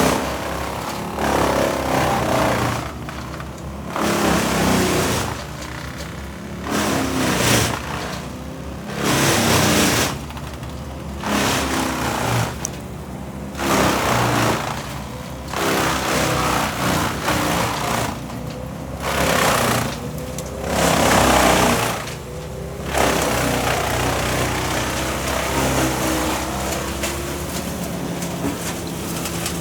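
Small petrol engine of tree-work equipment surging up and down in repeated bursts, about one every two seconds. It settles into steadier running about 23 seconds in.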